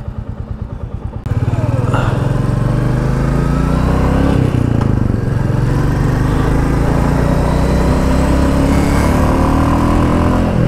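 Royal Enfield Classic 350's single-cylinder engine: a slow, even thump at idle for about a second, then the bike pulling away loudly. The engine note rises as it accelerates, drops at a gear change about four and a half seconds in, and then settles into a steady cruise.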